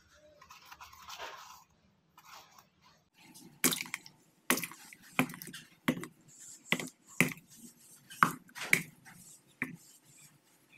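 Pieces of bitter melon dropped one after another into a stainless-steel pot with a little water, about ten irregular knocks with a short metallic ring. Soft scraping comes first.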